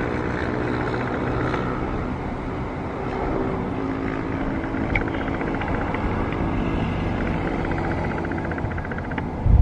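Airbus A321neo's Pratt & Whitney PW1100G geared turbofans at takeoff power as the jet climbs out after departure: steady jet engine noise with faint humming tones.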